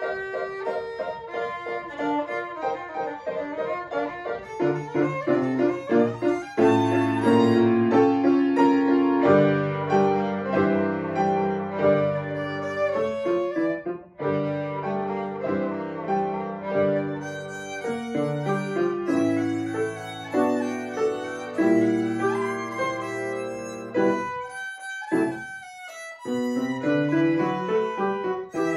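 Violin playing a lively classical passage with grand piano accompaniment. For about two seconds near the end the piano drops out and the violin plays alone, then the piano comes back in.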